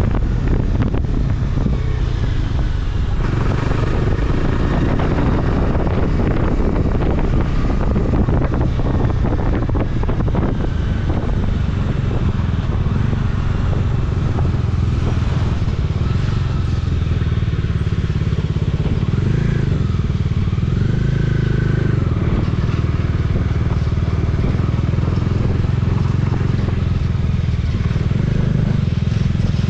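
Motorcycle engine running steadily while riding on the road.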